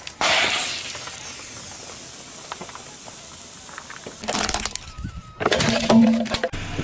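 Car tyre crushing disposable butane lighters on asphalt: a sudden loud burst as a lighter breaks, then a hiss of escaping gas fading away over a few seconds. Near the end come more loud cracking bursts as further lighters are crushed.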